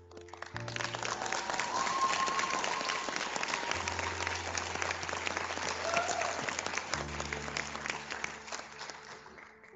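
Audience applauding, a dense patter of many hands that starts right away and fades out near the end, over soft background music.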